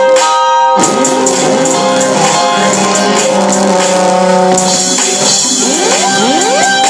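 Music: layered sustained pitched tones over a fast, steady high percussion beat, with a short break about half a second in and rising pitch sweeps near the end.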